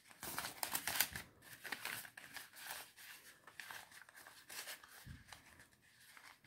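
Paper banknotes and a clear plastic binder envelope rustling and crinkling as a stack of bills is handled and tucked into the envelope: a continuous run of irregular rustles.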